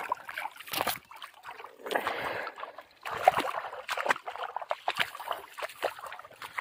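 Shallow water splashing and sloshing in irregular bursts as a landing net is worked in the water and someone wades barefoot through the muddy edge, with sharp wet slaps among the splashes.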